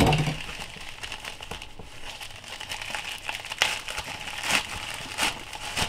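Plastic bubble mailer being crinkled and pulled open by hand, its glued flap coming apart, with a few sharper crackles in the second half.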